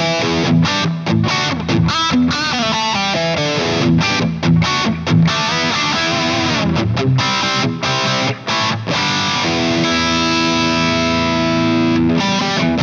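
Distorted electric guitar through a Fractal Audio FM3 modeler on its JP2c amp model, Yellow crunch setting: a riff of short chords with abrupt stops, then a chord left ringing for about two and a half seconds before the choppy riffing resumes near the end.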